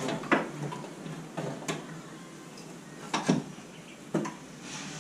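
Hand tools and parts knocking and clicking during reassembly of an overhauled Suzuki Karimun engine: about five sharp, separate knocks, the loudest about a third of a second in and just after three seconds.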